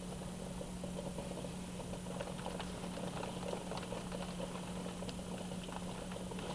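Heavy rain pattering, with many small irregular drop ticks, heard through a window, over a steady low hum.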